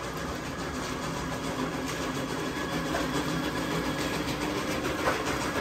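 A motor or engine running steadily, giving an even hum.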